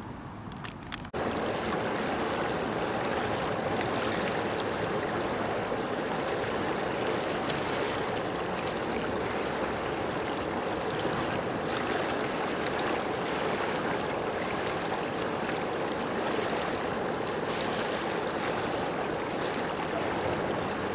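Faint outdoor ambience for about a second, then a sudden cut to a loud, steady rush of running water.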